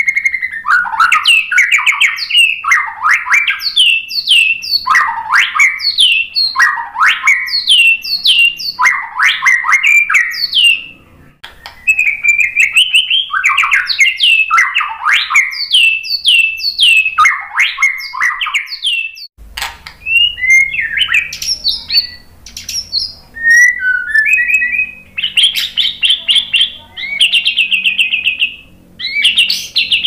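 White-rumped shama singing: loud repeated phrases, each a quick run of notes sweeping downward, about one a second. About two-thirds through the song changes to varied short whistles, chirps and rapid trills.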